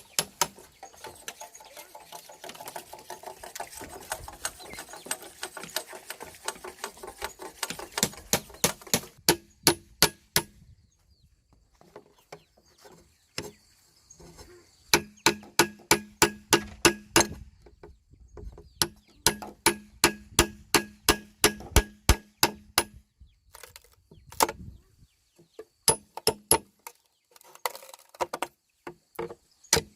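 Bamboo being struck in quick runs of sharp blows, about four or five a second, each with a short hollow ring, broken by pauses of a second or two.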